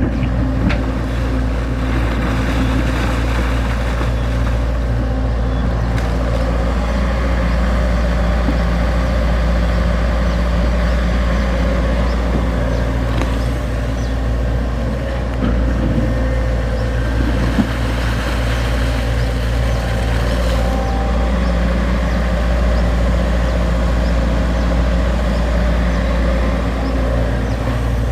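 XCMG XE75G excavator's diesel engine running steadily while digging soil, with a few faint knocks.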